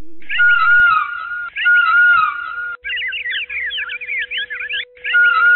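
Bird-like whistled chirping in short phrases that repeat almost identically, each with falling whistles over a held note, broken in the middle by a run of quick rising and falling trills. A steady low tone comes in and holds from about two and a half seconds in.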